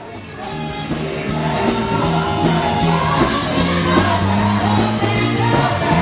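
Gospel praise-and-worship music with singing, dropping briefly at the start and then swelling louder.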